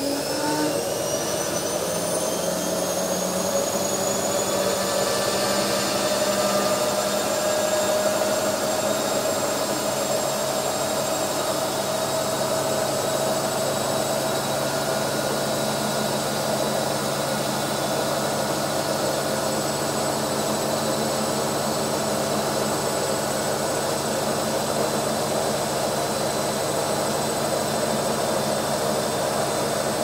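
Automatic washing machine running its drain cycle. A motor whine climbs in pitch over the first few seconds, then holds steady over a continuous rushing noise and a low hum.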